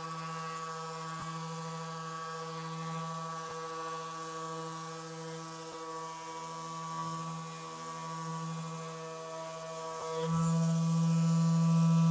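Handheld electric therapy device running with a steady hum, which gets louder about ten seconds in.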